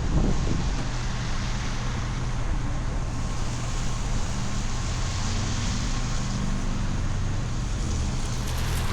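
Street traffic noise: vehicle engines running with a steady low hum, with wind on the microphone.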